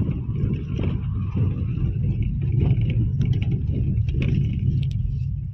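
A car driving, heard from inside the cabin: a steady low rumble of engine and tyres, with scattered light knocks and rattles.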